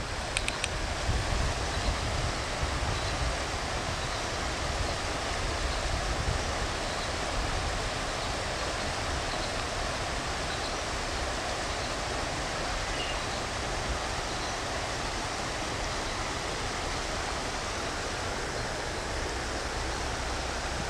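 Shallow river rippling steadily over stones. Wind buffets the microphone in the first few seconds.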